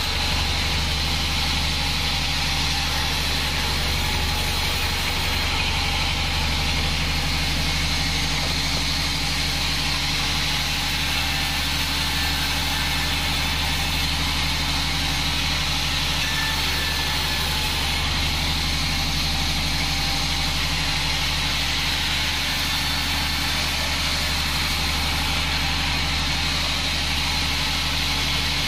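Homemade band sawmill running steadily while its blade rips a log lengthwise: a constant low machine hum with a steady high whine on top, unchanged throughout.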